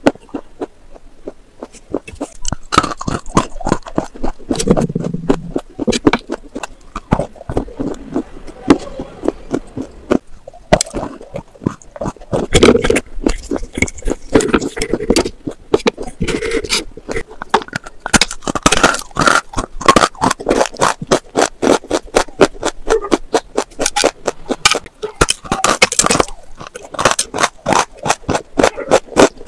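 Close-miked crunching and chewing of slate pencil pieces: sharp, brittle crunches and crackles. In the second half they become fast and regular, about four crunches a second.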